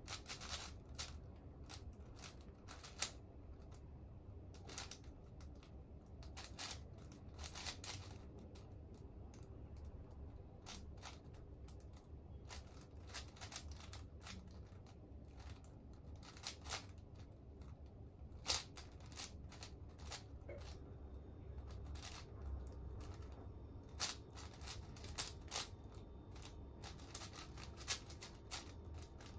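Plastic 5x5 speedcube being turned by hand during a solve: quick, irregular clicking of the layers in flurries, separated by short pauses.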